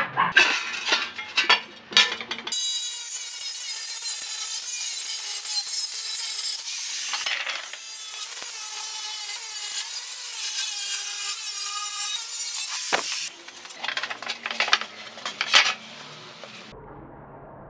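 Angle grinder with a cut-off disc cutting through the steel shell of a salvaged tank: a steady high whine that dips briefly about seven seconds in. Before and after the long cut come sharp metallic knocks and scrapes as the grinder bites and the metal is handled.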